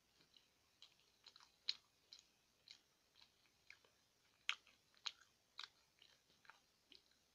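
Close-up chewing of a mouthful of banana, with irregular wet mouth clicks and smacks. The loudest smacks come about a second and a half in and again about four and a half seconds in.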